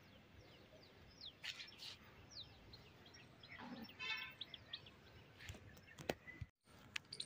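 Faint outdoor birdsong: short, quick falling chirps, then a longer call about four seconds in, with a few light clicks.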